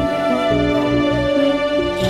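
Instrumental interlude of a Marathi film-style song: a held, slightly wavering melody line over changing chords and a steady bass beat, with no singing.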